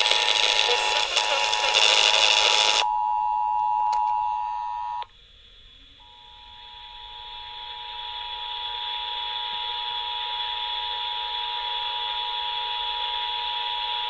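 Emergency Alert System two-tone attention signal broadcast over FM and played through a Midland ER-310 radio's speaker, marking the start of a required monthly test. The steady tone is heard through hiss for about the first three seconds, then plays clean. It cuts off about five seconds in, and after a second's gap the tone returns, swelling up over a few seconds and then holding steady.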